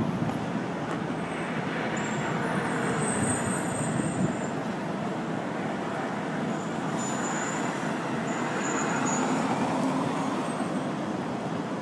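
Steady city street traffic noise, a constant wash of passing vehicles.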